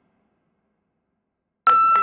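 Silence, then a little over one and a half seconds in, wrestling-arena sound cuts in abruptly with a loud, steady high tone.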